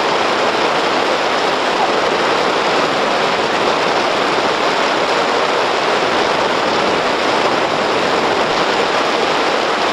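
Steady hiss of car tyres rolling over a snow- and slush-covered road, heard inside the moving car's cabin, with no distinct knocks or changes.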